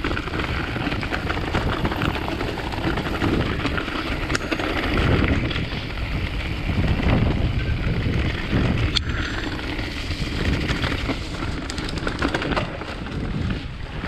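Wind buffeting a chest-mounted action camera's microphones as a mountain bike rolls down a leaf-covered dirt trail, with scattered small clicks and knocks from the bike over the rough ground.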